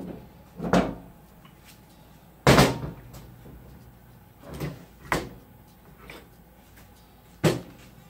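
Heavy metal transmission parts, the C4 pump and drum assembly, clunking against a steel workbench as they are lifted, turned and set down: several separate knocks, the loudest about two and a half seconds in.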